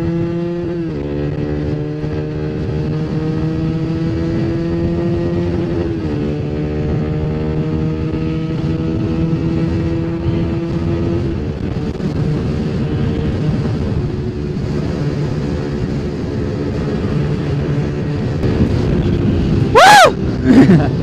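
Honda RS150 motorcycle engine pulling steadily, its pitch climbing slowly with two upshifts, about a second in and about six seconds in. Near the end there is a loud, short sound.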